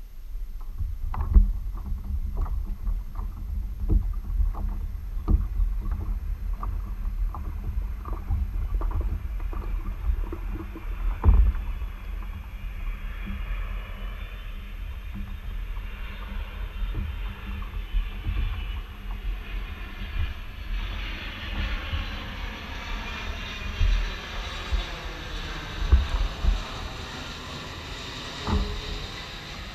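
Wind rumble on the microphone with a run of knocks about twice a second for the first twelve seconds or so. Then an airplane passing overhead grows steadily louder, its noise sweeping slowly in pitch.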